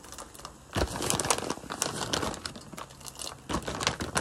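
Plastic bag of raisins crinkling as it is handled, in quick irregular crackles that grow louder about a second in.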